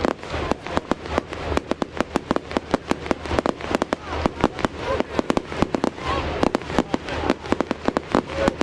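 Fireworks display going off in a rapid, continuous barrage of sharp bangs and pops, several a second with no break.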